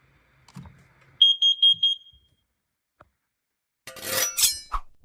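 Combination smoke and carbon monoxide alarm sounding four short, loud, high-pitched beeps in quick succession during a test. Near the end comes a short rustling clatter.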